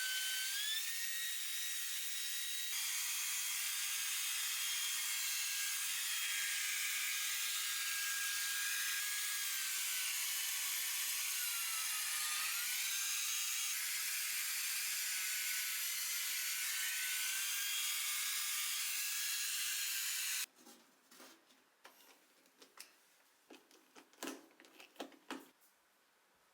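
Shark cordless stick vacuum running with a high-pitched motor whine whose pitch shifts up and down now and then. It cuts off suddenly about 20 seconds in, followed by a few light clicks and knocks.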